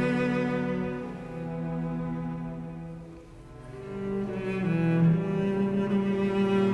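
Background music of slow, long-held bowed-string notes in a low, cello-like register, moving from note to note. It fades down about halfway through and then swells back up.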